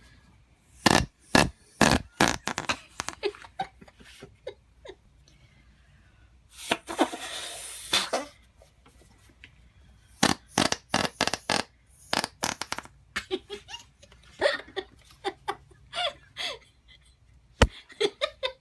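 Whoopie cushion being squeezed out in a string of fart noises, with sharp cracking snaps, one longer rasp around the middle, and laughter.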